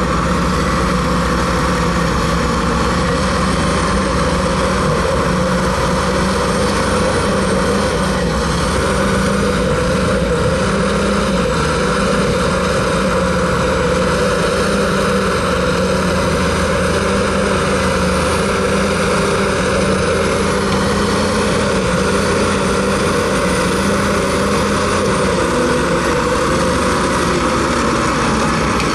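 Case 1150 crawler bulldozer's diesel engine running steadily under work, heard close from the machine, with a faint high whine wavering above it.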